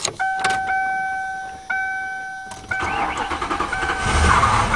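A 1997 Lincoln Continental's 4.6-litre V8 being cold started: a dashboard warning chime repeats about once a second while the starter cranks, and the engine catches and runs about four seconds in.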